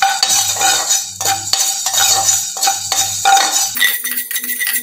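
A slotted metal spatula scraping and clinking against a metal pan in quick, repeated strokes as fenugreek seeds are stirred while dry-roasting.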